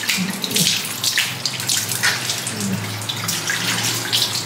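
Tap running into a sink, with irregular splashes as a face is washed with the hands.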